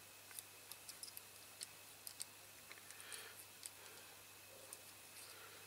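Faint, irregular light clicks of steel locking pliers handling a small, soft diecast metal steering part, against near silence.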